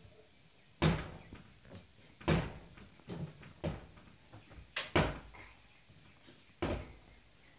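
Sharp wooden knocks and clacks from a toy play kitchen being handled by a small child, about seven at uneven intervals.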